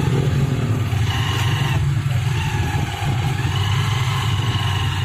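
Motorcycle engine of a sidecar tricycle running steadily while under way in traffic, heard from inside the sidecar. A faint high whine comes and goes over it.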